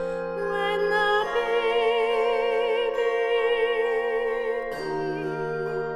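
Handbell choir ringing sustained chords that are left to ring, under a solo singer holding notes with vibrato. A new bell chord is struck about a second in and another near the end.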